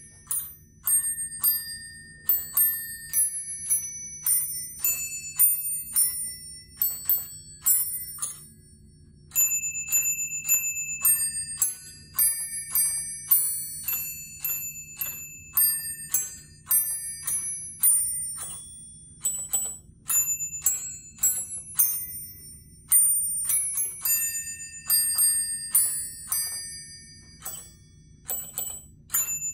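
Holiday Glockenspiel musical decoration: small brass bells on a hanging chain struck one after another, playing a tune note by note, each note ringing briefly. The tune breaks off for about a second some eight seconds in, then starts again.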